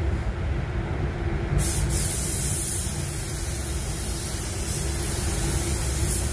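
Gravity-feed paint spray gun hissing as compressed air atomises pearl white basecoat onto a car bumper, over a steady low rumble. The hiss brightens about one and a half seconds in.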